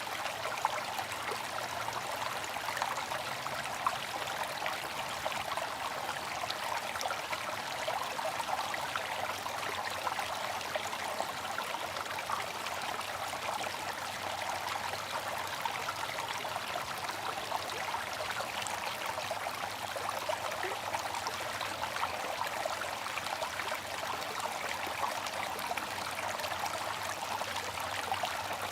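Bamboo water fountain: water trickling and splashing steadily, a bright, even water sound with many small splashes.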